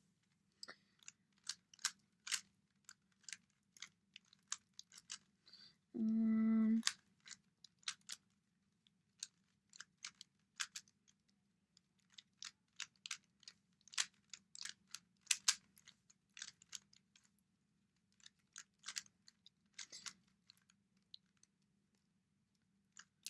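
Rubik's cube layers being turned quickly by hand: a continuous run of irregular plastic clicks and clacks. About six seconds in, a short steady buzzing tone sounds for just under a second.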